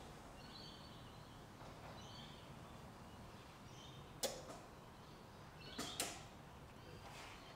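Quiet room tone broken by two sharp clicks, about four and six seconds in, with a few faint high chirps.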